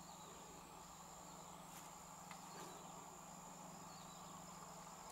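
Near silence: faint outdoor ambience with a steady high-pitched insect tone and a low steady hum.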